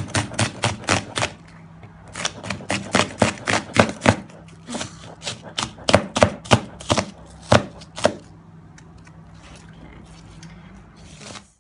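Kitchen knife chopping onions thinly on a chopping board: a quick run of sharp knocks, about four a second, with a brief pause about a second in, stopping about eight seconds in.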